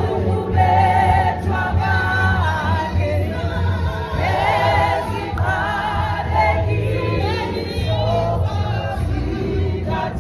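Gospel choir singing with a steady bass accompaniment, voices wavering with vibrato, and a woman close to the microphone singing along.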